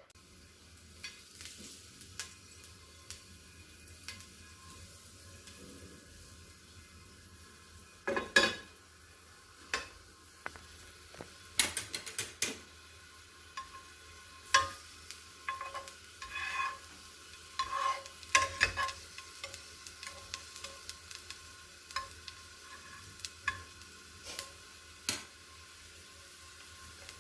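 Food sizzling in a frying pan with a steady hiss. From about eight seconds in, a utensil stirring it knocks and scrapes against the pan again and again.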